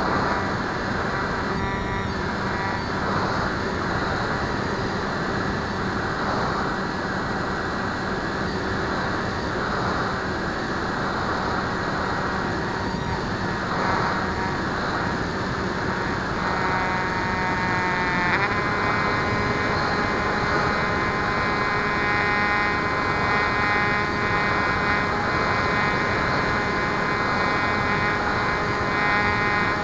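Bixler RC plane's electric motor and pusher propeller running in flight, a steady whine over rushing wind noise. The motor's whine dips briefly and then steps up to a higher pitch about eighteen seconds in as the throttle changes.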